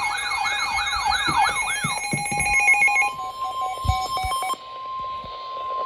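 Electronic emergency alert tones. A siren-like warbling tone sweeps up and down about four times a second for the first two seconds, then come short buzzy bursts, and about three seconds in a single steady alert tone near 1 kHz starts and holds. That steady tone fits the 1050 Hz NOAA Weather Radio warning alarm that opens a new alert.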